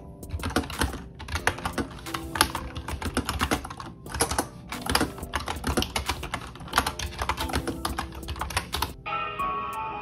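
Typing on a Yunzii B309 retro mechanical keyboard with round typewriter-style keycaps: a quick, irregular run of key clicks that stops about a second before the end, over background music.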